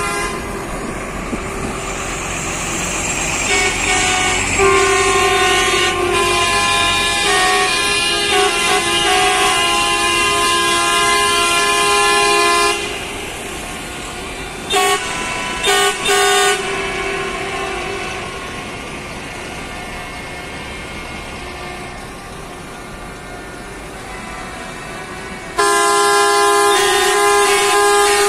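Coach horns honking, several sounding together in long held blasts, with three short toots in between, over the steady running of buses passing by.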